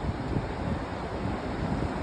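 Strong dust-storm wind blowing: a steady rush with gusts buffeting the microphone in irregular low rumbles.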